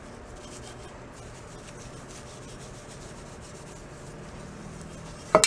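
A steel-wool soap pad wet with lacquer thinner scrubbing painted steel of a motorcycle fork part, a steady rubbing hiss as black overpaint is stripped off. A sudden loud clatter breaks in near the end.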